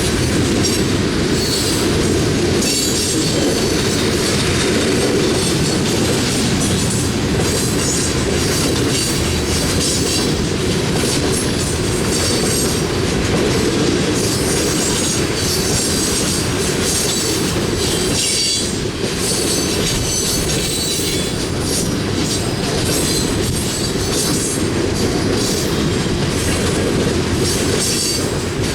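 Coal train cars rolling steadily past, wheels clattering over the rails, with a high-pitched squeal of wheels coming and going.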